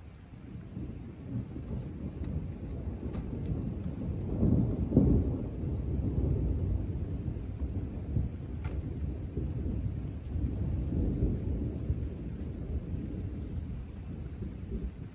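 A long roll of thunder that builds to its loudest about five seconds in, then keeps rumbling and fades away near the end.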